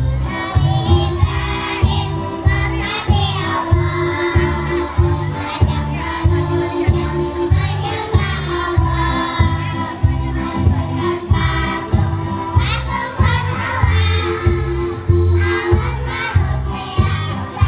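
Young children's choir singing together over recorded backing music with a steady beat.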